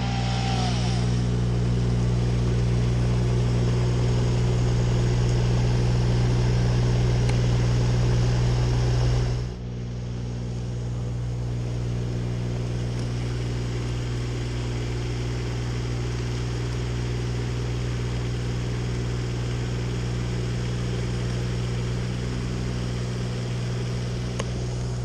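A small engine running at a steady speed, with a constant low hum. About nine and a half seconds in it drops a little in level and carries on steadily.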